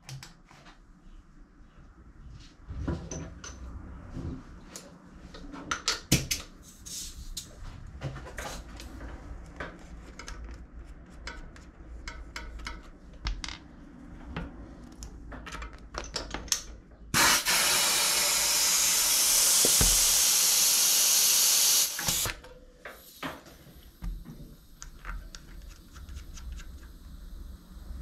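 Light clicks and taps of handling at a bicycle tyre's valve. A little past halfway, air hisses loudly and steadily through the valve for about five seconds, starting and stopping abruptly.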